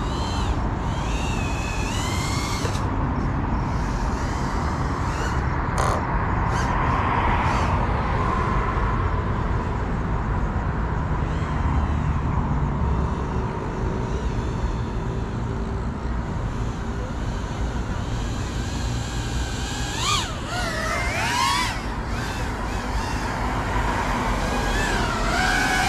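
GEPRC Cinelog 35 FPV drone's motors whining at a distance, the pitch rising and falling as the throttle is worked, over a steady low rumble.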